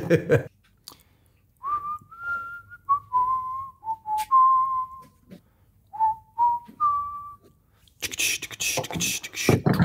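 A person whistling a short tune of about ten clear notes, stepping up and down, for around five seconds. Near the end, loud rapid mouth noises follow.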